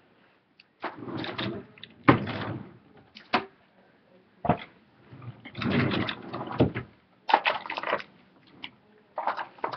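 Irregular knocks, sharp clicks and rustling from someone moving about and handling things in a small room, in several separate bursts.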